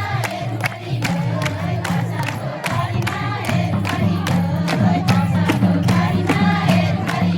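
Nepali Teej folk song: voices singing over a steady drum beat and a low bass line, with a crowd.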